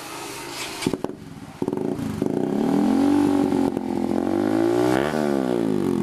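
Honda CBR motorcycle engine being started: a short whine and a click, then the engine catches about a second and a half in. It is revved up and down, with a quick throttle blip about five seconds in, through an exhaust that sounds soft and round.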